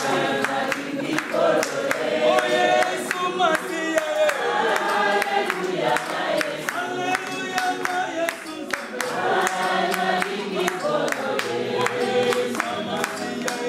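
A group singing together, led by a man's voice, with steady hand-clapping to the beat.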